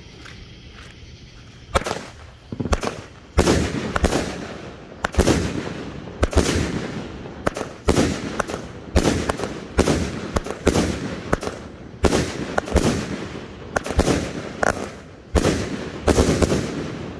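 A 16-shot 200 g consumer firework cake firing. A rapid string of loud bangs starts about two seconds in and comes roughly every half second to a second, each one trailing off, until just before the end.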